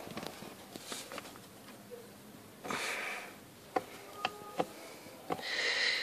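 Faint handling sounds from refitting plastic footwell trim with a screwdriver: a few light clicks and taps. Two short rushes of noise close to the microphone, about three seconds in and near the end.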